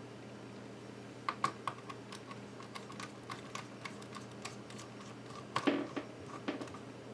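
Small irregular clicks and taps from handling an iBook G4 laptop's plastic and metal parts and tiny screws during disassembly, with a louder clatter about five and a half seconds in.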